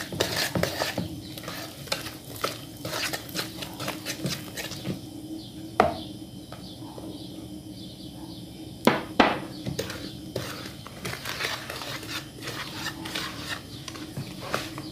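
Metal wire whisk stirring flour into batter in a plastic bowl: quick, irregular clicks and scrapes against the bowl. The clicking thins out for a few seconds in the middle, then picks up again with a couple of louder knocks.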